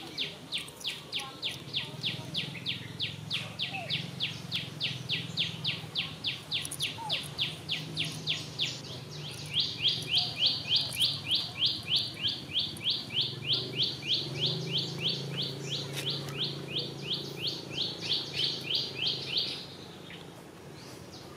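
A high-pitched chirp repeated in a steady, even rhythm, several times a second. Around ten seconds in it becomes louder and sits slightly lower, and it stops about two seconds before the end.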